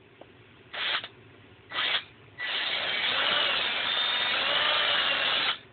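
Power drill drilling a pilot hole: two short trigger blips, then a steady run of about three seconds as the bit cuts through.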